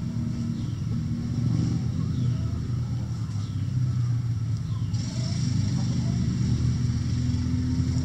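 A steady low engine-like rumble runs throughout, with short falling high chirps repeating about once a second and a high hiss coming in about five seconds in.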